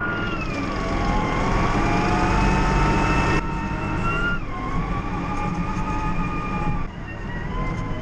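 Small farm tractor's engine running while driving and towing a trailer, heard from the driver's seat, with a high whine that shifts in pitch a few times.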